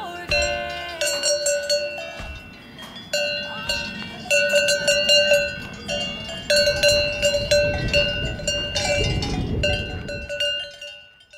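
Cowbells on grazing Highland cattle clanging irregularly, each stroke ringing on the same few bright tones. A low rumble swells near the end, and the sound then fades out.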